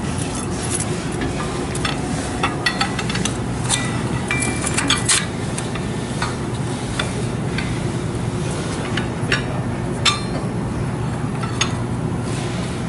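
Scattered light metallic clinks and taps of steel bolt hardware and an alignment rod knocking against a steel pipe flange as a bolt is fitted, over a steady low hum.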